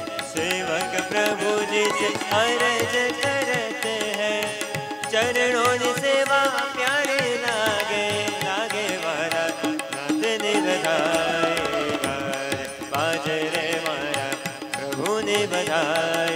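Live Indian devotional music: an electronic keyboard and tabla play with a gliding, wavering melody line. The music is steady throughout, with no spoken words.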